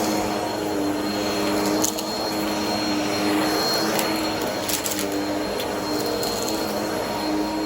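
Vacuum cleaner running steadily on carpet. Its motor tone steps slightly up and down every second or so, and a few brief crackles come through as crunchy debris is sucked up.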